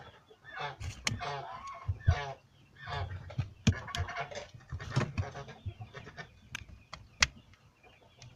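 Chickens clucking, a run of short calls that thins out in the second half, with a few sharp clicks.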